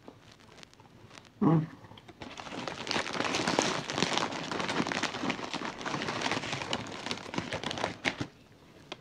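Plastic packaging crinkling and crackling as it is handled, from about two seconds in until shortly before the end. Just before it, a short vocal sound.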